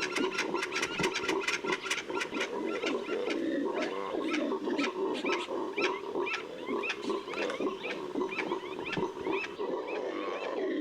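A flock of chachalacas calling together in an alarm chorus, many overlapping voices with quick repeated higher notes over a lower layer of calls.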